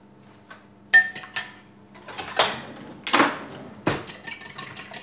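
Kitchen utensil work at a glass mixing bowl. A utensil clinks on the glass about a second in, followed by two short rushing sounds and a thump. Near the end, a fork starts beating the egg and cream quiche filling against the bowl in quick, even strokes.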